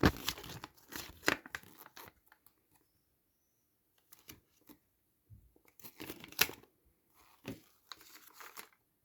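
Packaging of a MoYu MeiLong 4x4 speed cube being handled and opened: short rustling and tearing sounds with scattered clicks. There is a brief quiet gap in the middle, and the loudest handling noise comes about two-thirds of the way through.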